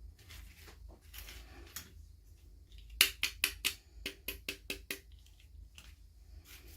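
Small plastic toy pieces and packaging being handled during an unboxing: soft rustling, then a quick run of about ten light clicks about three seconds in, then more rustling near the end.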